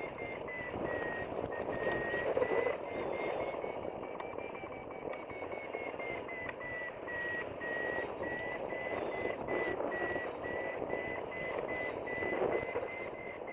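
Flytec variometer's climb tone, a high steady beeping that rises a little in pitch midway and settles back, signalling that the hang glider is climbing in a thermal. Steady wind noise on the microphone runs underneath.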